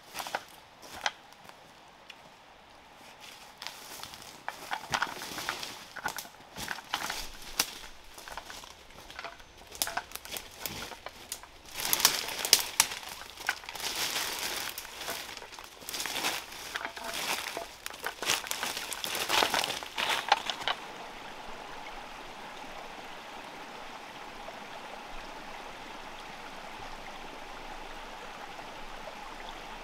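Irregular crinkling and crackling with many sharp clicks for about twenty seconds, busiest in the middle, then it stops suddenly and a steady rush of running water is left.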